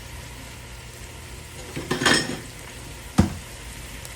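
A metal utensil clattering in a pot of potatoes about two seconds in, then one sharp knock against the pot, over a steady low hum.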